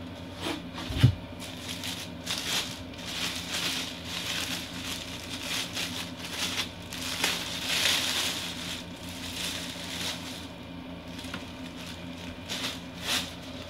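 A plastic bag crinkling and crackling irregularly as it is pulled off a 15-inch subwoofer, with a brief low thump about a second in.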